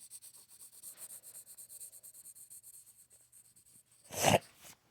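Rapid back-and-forth scribbling of a drawing tool on a surface, about eight scratchy strokes a second, as in quick shading; it stops a little after three seconds. About four seconds in comes one loud, brief rub or thump, the loudest sound here, followed by a smaller one.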